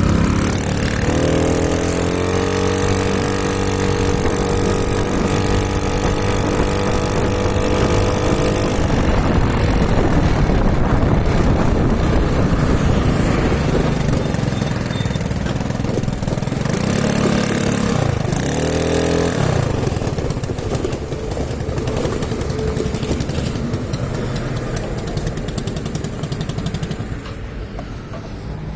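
Motorcycle engine under way. About a second in the revs rise and then hold steady for several seconds. A rushing noise then takes over, with a brief rise and fall in revs twice near the middle.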